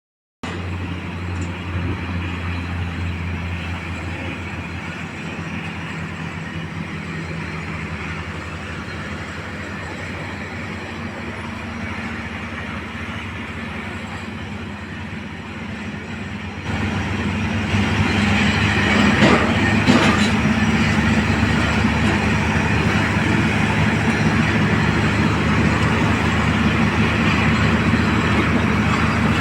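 Heavy machinery running with a steady low engine hum and mechanical rumble. It gets louder suddenly about seventeen seconds in, with a few sharp knocks a couple of seconds later.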